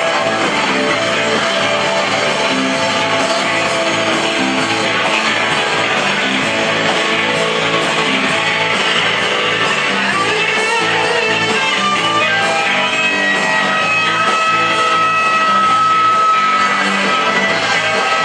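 Live rock band playing with electric guitars, loud and steady, with a few long held high notes in the second half.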